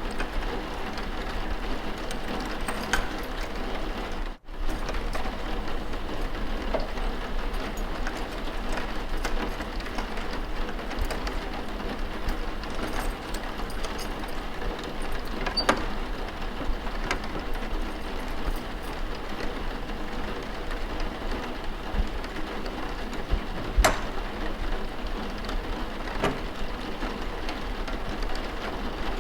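Steady rain ambience with a few faint sharp clicks scattered through it; the sound drops out for an instant a little after four seconds in.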